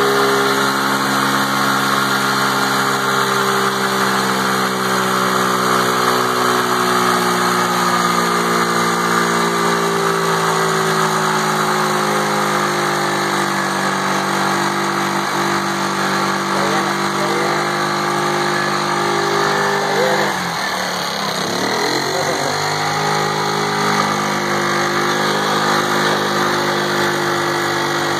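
Small 50cc youth ATV engine held at high revs in a stationary burnout, its chained-down rear tire spinning on wet ground: the rev-limiter burnout. About twenty seconds in, the revs drop sharply for a moment and then climb back up.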